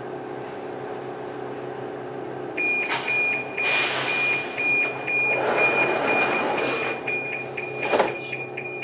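Metro station hum, then a rapid, high-pitched warning beep, about two a second, starts about two and a half seconds in and keeps going: the signal of the metro doors closing. A hiss of air and a rushing, sliding noise run under the beeping, and a sharp knock comes near the end.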